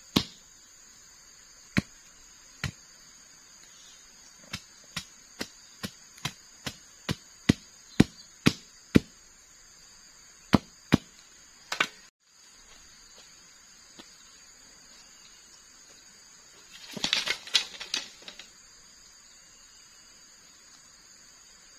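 Machete chopping into a wooden stake, hitting it with sharp single strokes; in the middle comes a steady run of about two strokes a second. Near the end there is a short burst of clattering. A steady high insect drone runs underneath.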